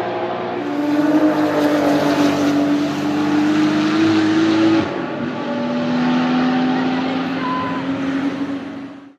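Porsche 935 Kremer's turbocharged flat-six race engine running hard under acceleration. Its pitch drops suddenly a little under a second in and again about five seconds in, climbing slowly after each drop, as with upshifts. The sound falls away and stops near the end.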